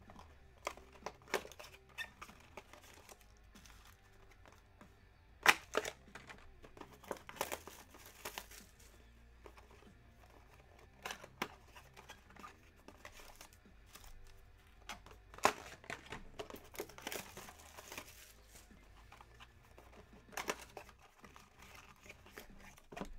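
Plastic wrapping on boxes of trading cards crinkling and tearing as the boxes are handled and opened, with scattered sharp clicks and taps, the loudest about five seconds in and again near the middle.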